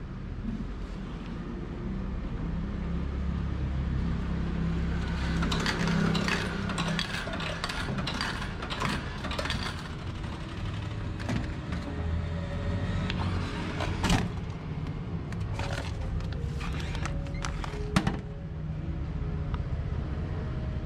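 Fuji Electric spiral-coil vending machine dispensing a bagged item: a steady low hum under a run of clicking and rattling, with two sharp knocks, the louder near the end.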